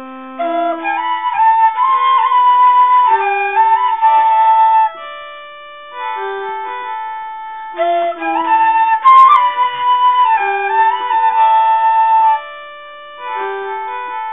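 Background instrumental music: a slow melody of held notes over sustained tones, softening briefly about five seconds in and again near the end.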